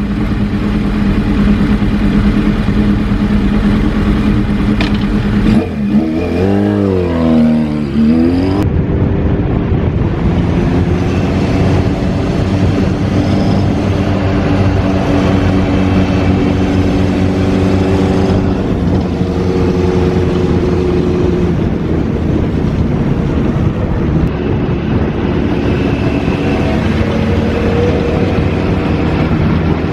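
Kawasaki Z2's air-cooled inline-four engine running through a Moriwaki Monster racing muffler, under way at fairly steady revs. The pitch swings up and down briefly about six to eight seconds in, then settles again.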